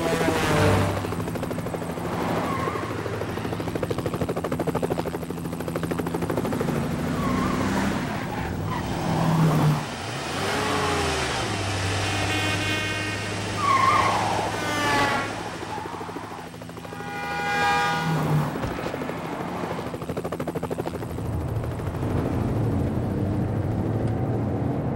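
BMW X5 SUV driving along a road, its engine a steady drone heard from inside the cabin. Several wavering pitched sounds rise over it midway.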